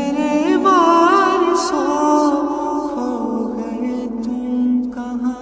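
A cappella nasheed: a male voice sings a long, wavering, ornamented line over a steady hummed background vocal drone, with no instruments.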